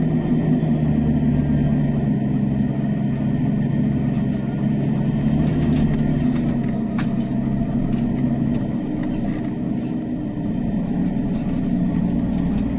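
Fendt 818 Vario tractor engine running steadily, heard from inside the cab while the tractor turns at the field's edge during ploughing.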